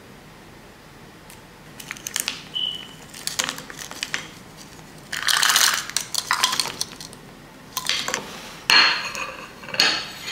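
Frozen blueberries tipped from a small bowl into a wooden bowl, rattling in as a dense burst, among light clinks of dishes. Near the end come sharp knocks of dishes on the countertop as a plate is set down.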